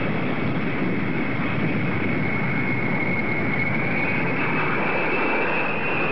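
B-52H bomber's jet engines heard in flight as a steady rushing noise. A high whine rises slightly in pitch over the last two seconds.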